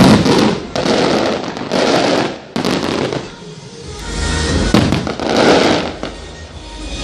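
Fireworks going off in quick succession: loud bangs about once a second, each followed by crackling, with a short lull midway before more bursts.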